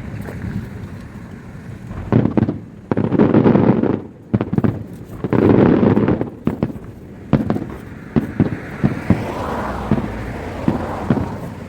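Aerial fireworks bursting: heavy rumbling booms about two seconds in and again around the middle, then a rapid run of sharp cracks and pops.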